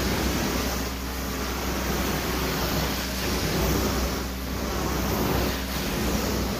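Carpet-cleaning extraction tool being pushed across carpet, its vacuum hose sucking with a steady rushing noise over a low hum.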